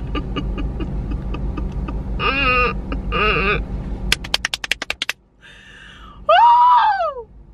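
Rap beat playing: deep sub-bass under an evenly ticking hi-hat pattern with short vocal snippets, a rapid stutter of clicks about four seconds in, then the beat drops out about five seconds in and a loud voice calls out, its pitch rising and then falling.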